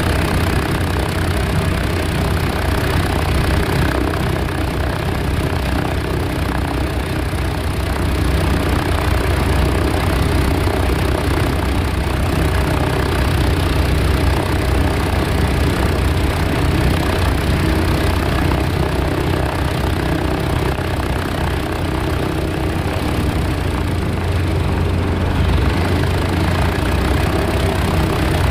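Boeing B-17G bomber's Wright R-1820 Cyclone radial engines idling on the ground, heard from inside the fuselage as a loud, steady, deep drone.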